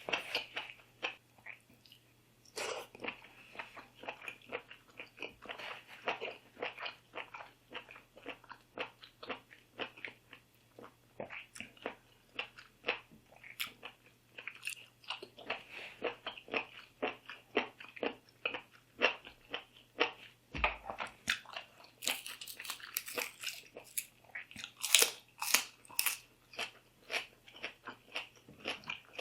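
A person chewing and biting food close to the microphone, an irregular run of wet, crisp crunches, with a few louder bites about two-thirds of the way in and near the end.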